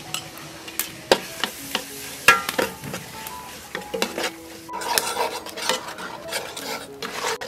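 Metal ladle stirring and scraping a spice paste frying in an aluminium pot, with sharp clinks of the ladle against the pot over a steady sizzle.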